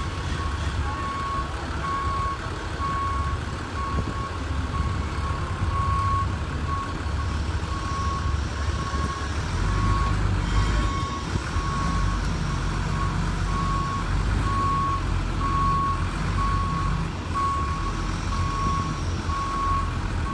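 SPARTA underground mining boom truck creeping onto a trailer, its back-up alarm beeping at a steady rate over the low running of its engine. The engine grows louder about halfway through as the truck climbs the trailer deck.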